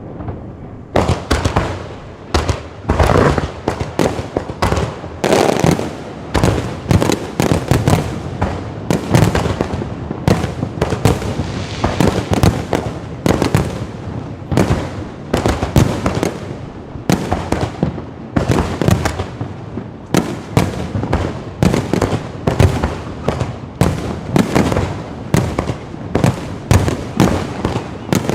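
Low-altitude fireworks going off in quick succession, with loud bangs and crackles several times a second that start about a second in and keep on without a break.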